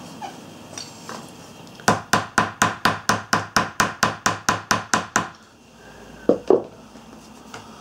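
Quick run of some fifteen to twenty light, even taps, about five a second, tapping down freshly sewn hand saddle stitches on leather to flatten and set the seam, followed by two duller knocks near the end.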